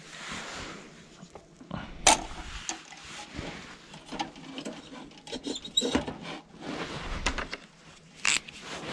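Hands handling a metal hurricane oil lantern on a slatted wooden table: scattered small clicks, taps and rustles, with a sharp click about two seconds in and another near the end.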